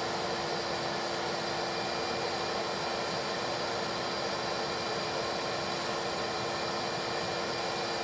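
Bee vacuum's motor running steadily, a constant hiss with a steady hum and a high whine, sucking honey bees out of a bird house through its hose.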